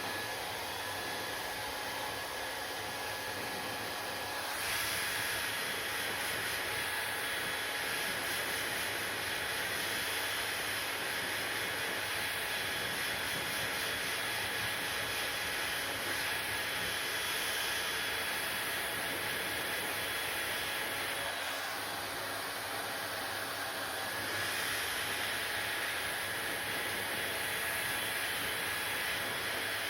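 Hair dryer blowing steadily, a whooshing airflow with a faint motor whine. It gets louder and brighter about four seconds in, eases off slightly a little past the middle and comes back a couple of seconds later.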